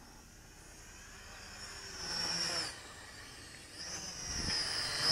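XinXun X-53F mini quadcopter's motors and propellers whining in flight. The high whine swells twice, about two seconds in and again near the end, its pitch rising and falling as the throttle changes.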